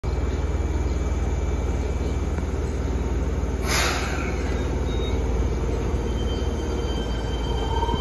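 Fukuoka City Subway 1000N series train with Hitachi IGBT-VVVF inverter equipment humming steadily at the platform. A short burst of air hiss comes about halfway through. Near the end a faint rising whine starts as the train begins to move off.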